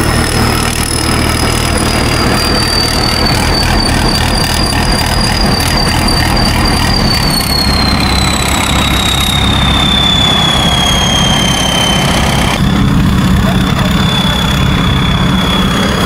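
An engine running steadily with a loud, high-pitched whine above a low rumble; the whine slowly drops in pitch through the middle, and the sound changes abruptly about three-quarters of the way through.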